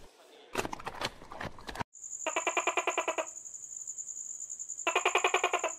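A giant panda crunching and cracking bamboo as it chews. After a sudden cut, a steady high whine runs on, and twice a rapid buzzing trill sounds for about a second each.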